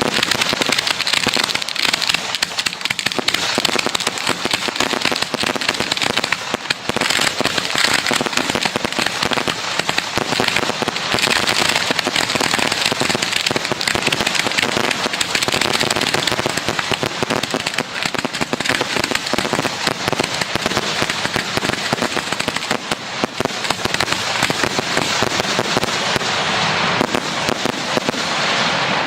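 Professional 1.3G display fireworks firing in a dense, continuous barrage, with rapid overlapping reports and crackling.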